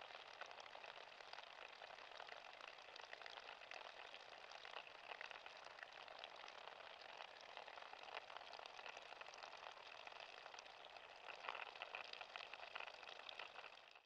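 Faint trickling and bubbling of meltwater running under thawing ice, with many tiny drips and pops.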